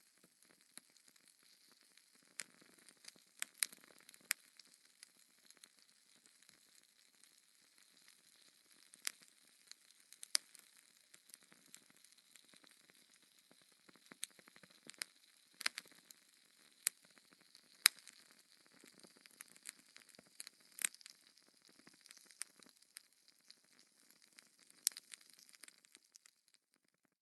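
Wood fire crackling in a fireplace: irregular sharp pops and snaps over a faint steady hiss. It cuts off suddenly near the end.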